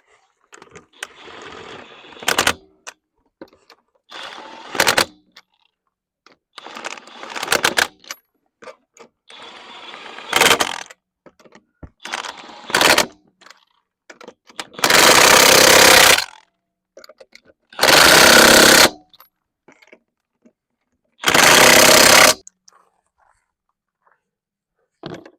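Impact wrench running lug nuts on a wheel: short rattling bursts ending in sharp hammering, then three longer loud bursts as the nuts are driven tight.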